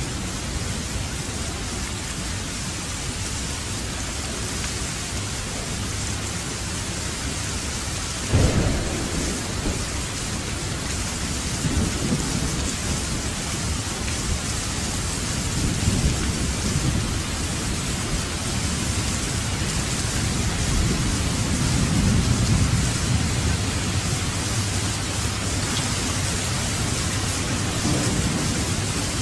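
Thunderstorm: steady rain falling, with a sharp thunderclap about eight seconds in, followed by several low rolling rumbles of thunder.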